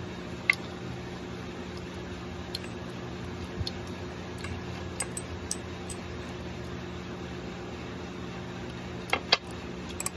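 A metal spoon clicking and scraping against a ceramic egg cup while balut is scooped out: scattered light clicks, the sharpest about half a second in and a quick pair near the end, over a steady low hum.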